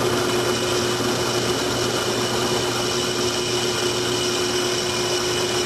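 Handheld electric drill running at a steady speed, its twist bit boring through a cast aluminum collet tray. The drill's motor makes a constant, even whine throughout.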